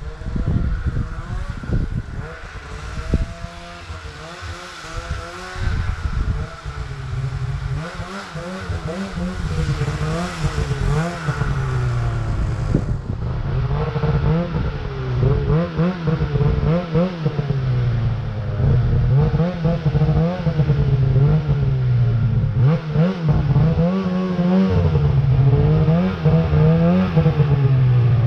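2017 Arctic Cat M8000 ProClimb snowmobile's two-stroke engine revving up and down over and over, growing louder toward the end, with a few knocks at the start.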